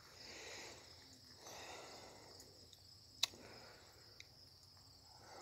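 Quiet outdoor background with a steady high insect trill, soft breathy rustles, and a single sharp click about three seconds in.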